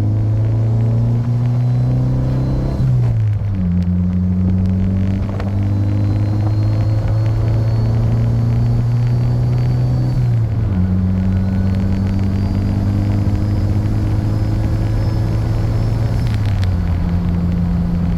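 Turbocharged Honda car engine under way, pulling through the gears: its note climbs, then drops back at a gear change about 3, 10 and 16 seconds in. A faint high whistle rises along with each pull.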